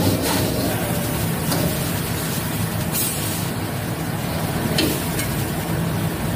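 Gas wok burner running steadily under a hot wok, with the wok's contents sizzling. A few short clicks or scrapes break in about a second and a half, three and five seconds in.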